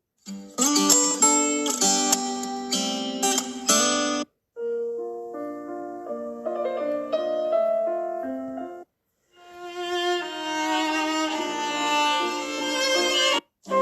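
Samsung Galaxy A23 5G ringtones played one after another: three short instrumental melodies of about four seconds each, each one stopping abruptly before the next begins.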